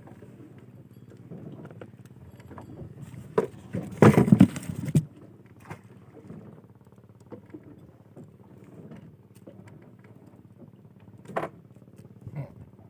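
A boat's engine running steadily, with scattered knocks and clatter on deck and one loud rattling burst about four seconds in.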